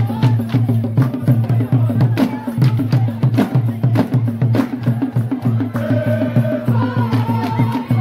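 Acholi bwola dance drumming: a fast, steady beat on many drums, with sharp high strikes cutting through. Voices sing or call briefly about six seconds in.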